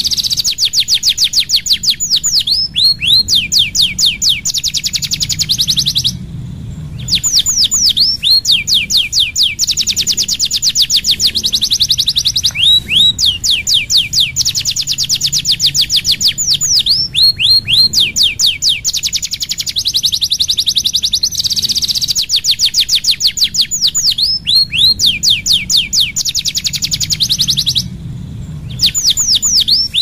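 Domestic canary singing long, fast rolling trills of high repeated notes, with falling sweeps between phrases. The song breaks off briefly twice, about six seconds in and near the end.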